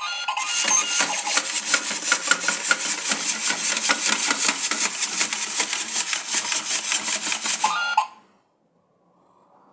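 Retro telephone-bell ringtone: a rapid, continuous metallic ringing that cuts off abruptly about eight seconds in.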